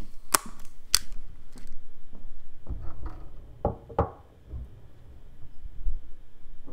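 Three sharp clicks in the first two seconds, then a few dull, low thumps a little later, in a quiet room.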